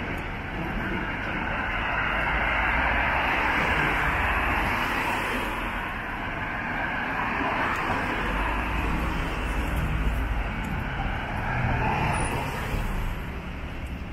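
Road traffic on a wet street: the hiss of vehicles passing, swelling as one goes by a couple of seconds in and again near the end.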